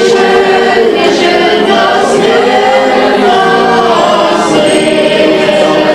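A group of people singing a song together in chorus, with long held notes.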